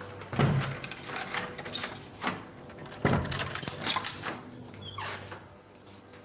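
Rustling and clattering of a phone being handled and covered right at its microphone, in two bursts: one about half a second in and a longer one from about three to four seconds in, with fainter rustling after.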